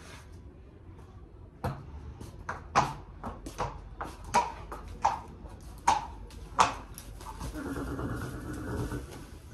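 Horse's hooves striking a concrete floor at a walk: about ten sharp, ringing clops over five seconds, then a rougher, drawn-out sound lasting about a second and a half near the end.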